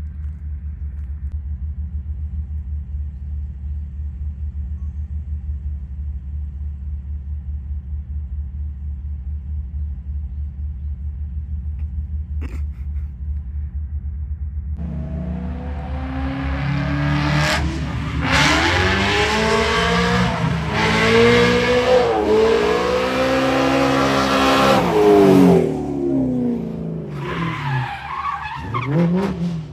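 Steady low rumble, then a BMW M3 coupe's V8 engine coming in about halfway, revving up and down hard as the car drifts through a bend with tyre squeal. Loudest about three quarters of the way through, then falling off near the end.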